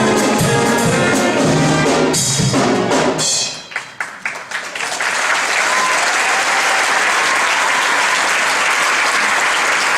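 A show tune with brass and drums ends on its final notes about three seconds in, and audience applause starts up and carries on.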